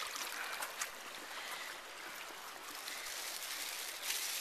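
River water running and trickling, with a few faint crinkles from a wet plastic bag being handled in it.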